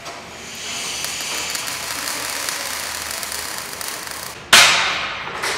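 Arc welding on steel, a steady crackling hiss, with a sudden much louder burst of hiss about four and a half seconds in that fades over about a second.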